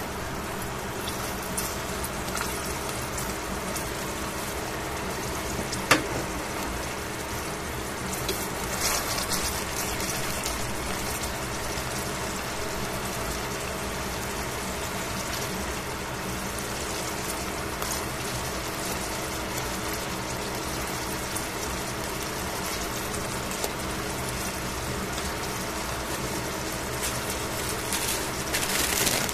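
Thin-sliced beef frying in a stainless steel pan, its juices and fat sizzling and crackling steadily. One sharp click about six seconds in.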